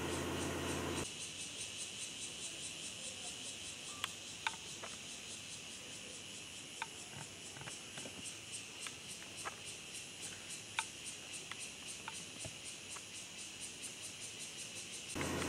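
A steady chorus of insects: a high-pitched, rapidly pulsing trill with scattered faint clicks. A low hum under it drops out about a second in and comes back near the end.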